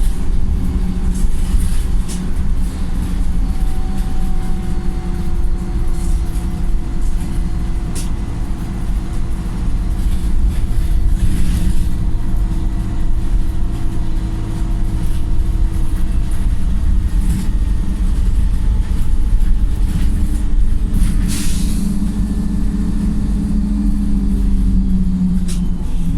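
Wright StreetLite single-deck bus heard from on board, its four-cylinder Cummins diesel running under way with a steady drone. Two short hisses of air sound, about halfway through and near the end.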